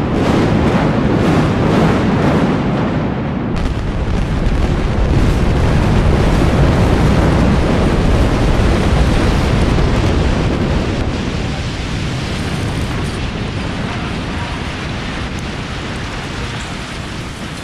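Explosive demolition of a high-rise office tower: a few sharp cracks in the first three seconds, then the deep, continuous rumble of the building collapsing. The rumble is loudest about halfway through and slowly dies away.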